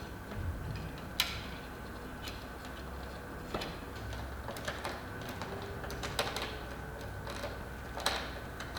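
Scattered light clicks and knocks of wooden frame parts and a screw being handled and fitted, about one every second, over a faint steady hum.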